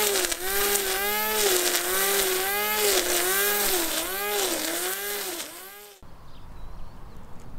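Corded electric string trimmer running, its motor whine dipping and recovering in pitch about twice a second as the line cuts through grass. It cuts off abruptly about six seconds in.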